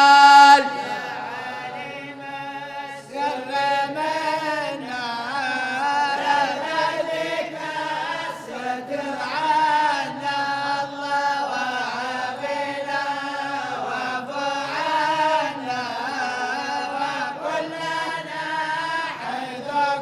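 A group of men chanting a Sufi devotional qasida in Arabic together, unaccompanied. The chant moves in long, drawn-out melodic phrases that are held and bent in pitch.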